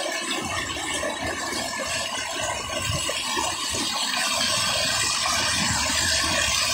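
Floodwater rushing and churning as it pours over a road, a steady wash of noise that grows a little louder toward the end.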